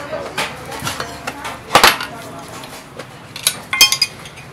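Steel tyre levers clinking and scraping against a spoked motorcycle wheel rim as the tyre bead is levered on: a few sharp metallic clanks with short ringing, the loudest just before two seconds in and a quick cluster near the end.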